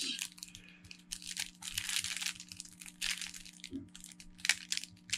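Clear plastic shrink wrap crinkling and tearing in irregular bursts as fingers peel it off a sealed deck of cards.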